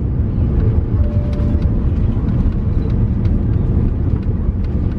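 An airliner rolling along the runway, heard from inside the cabin: a loud, steady low rumble of engines and wheels, with a few faint clicks.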